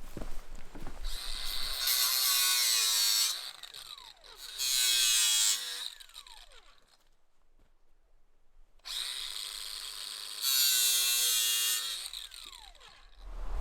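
A power tool running in three bursts, its motor whining at a steady speed and then winding down after each one.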